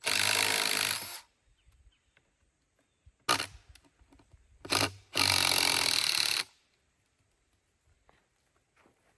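A shovel scraping into rocky Kentucky soil while backfilling a post hole: four gritty scrapes, two long ones about a second each and two short ones between them.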